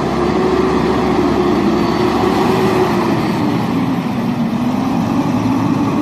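Rear-loading garbage truck's diesel engine running, a steady hum that drops slightly in pitch about halfway through.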